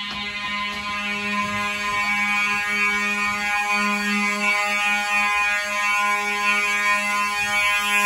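Simplex fire alarm horn sounding the building's evacuation alarm, one steady unbroken tone.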